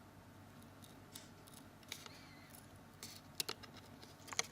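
A few faint, sharp clicks and light scrapes of a small hand tool working against a smartphone's plastic case while prying the touch keys and home key free.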